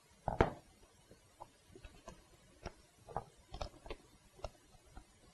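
Scattered clicks and light knocks of hand work on a car seat's base and tools handled on the workbench, the loudest a knock about half a second in.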